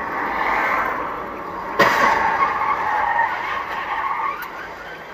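Car tyres skidding, with a sharp crash of a collision about two seconds in that is the loudest moment, and more skidding after it that fades out near the end.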